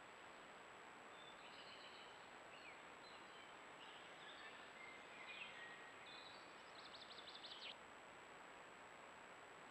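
Faint songbird chirps and short whistled notes over the steady hiss and thin high whine of a trail camera's microphone, ending in a fast trill about seven seconds in; after that only the hiss remains.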